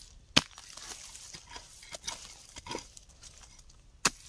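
A digging tool striking earth and roots: a sharp knock about half a second in, the loudest sound, another near the end, with softer scraping and rustling of soil between.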